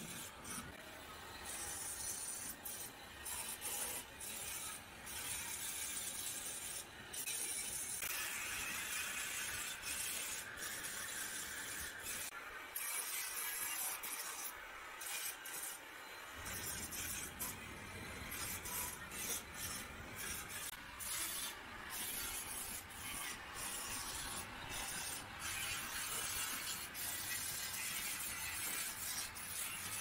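Handheld angle grinder working the welded steel frame of a wire bird cage, the disc rasping against the metal. The rasp breaks off briefly again and again as the disc is lifted and set back down.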